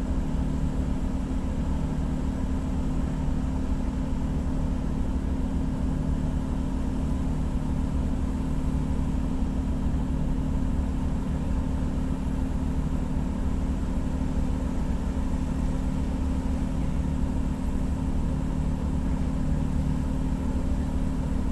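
Ship's diesel engine running steadily aboard the vessel: a constant low hum with a few fixed tones and no change in speed.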